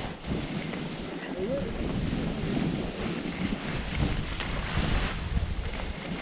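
Wind rushing over the microphone while skis hiss and scrape over the snow on a downhill run, the scraping a little stronger around the middle of the run.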